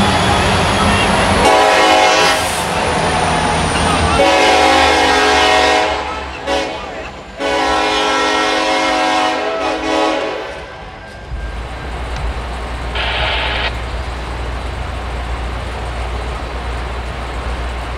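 Norfolk Southern diesel freight locomotives' air horn sounding three blasts, each longer than the last (about one, two and three seconds). A low diesel engine rumble comes before the horn and again after it as the train moves on.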